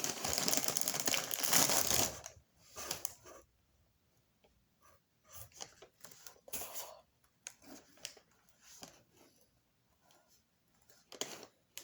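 Plastic cereal bag being handled: a loud crinkling rush for about two seconds, then scattered short rustles and crinkles.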